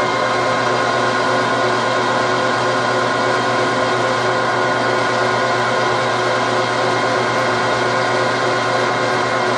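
Metal lathe running steadily with a shotgun barrel spinning in the chuck, its gear drive giving an even whine of several tones, while a boring bar is eased up to touch off inside the bore.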